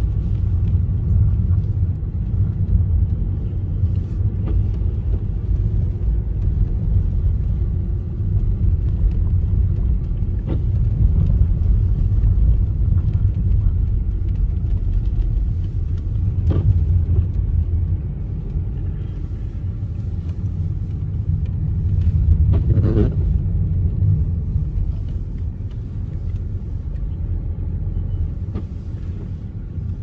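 Car's engine and tyre noise heard from inside the cabin while driving on snow-covered roads: a steady low rumble, with a few brief knocks.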